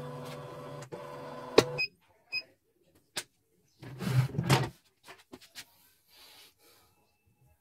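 CNY portable computerised embroidery machine: the embroidery unit's motors hum steadily as the carriage moves, with a short break partway, then two short high beeps from the machine, a click, and a second, shorter motor run about four seconds in, followed by a few light clicks.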